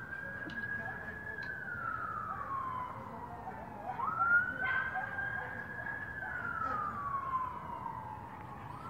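Police car siren wailing: each cycle rises quickly, holds high, then slides slowly back down, repeating about every four and a half seconds. A brief louder sound comes about four seconds in.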